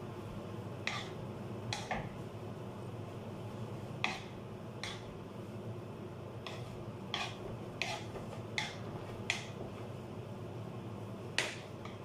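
Metal wire potato masher clinking against a non-stick pot while mashing cooked rice: about eleven sharp, irregularly spaced clinks over a steady low hum.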